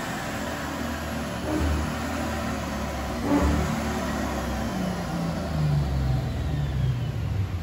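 Supercharged 5.0-litre V8 of a 2008 Lexus IS F running on a chassis dyno. The revs swell a few times, then the engine note falls in pitch near the end as it winds down, with a faint high whine falling along with it.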